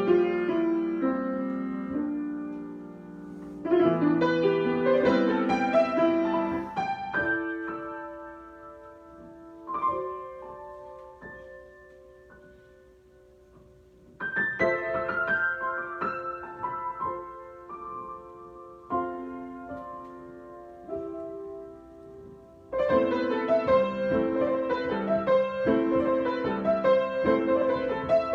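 Solo piano improvising: full chordal phrases that thin out and die away to a few held notes, then come back strongly, with loud returns about four seconds in, about halfway through, and again near the end.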